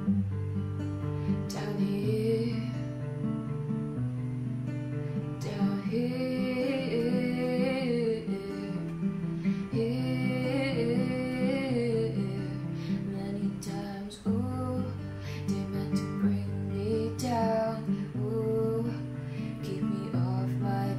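Acoustic guitar strummed in steady chords, with a young woman singing over it in phrases that come and go.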